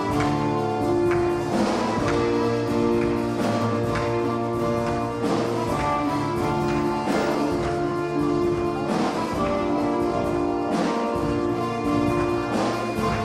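Instrumental music: held chords over a slow, steady beat, with a stroke about every two seconds.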